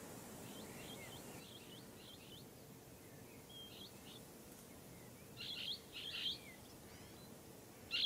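Blue-headed parrot (Pionus menstruus) calling: faint short chirps in the first few seconds, then two louder bursts of shrill, harsh calls about five and a half and six seconds in.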